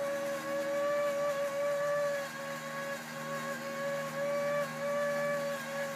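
Toy bubble machine's small electric motor and fan running with a steady whine, the pitch wavering and dipping slightly now and then.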